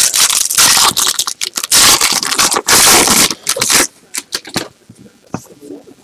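Foil wrapper of a baseball card pack crinkling and tearing as it is ripped open by hand, loud and continuous for about four seconds. After that it drops to soft scattered clicks as the stack of cards is pulled out and handled.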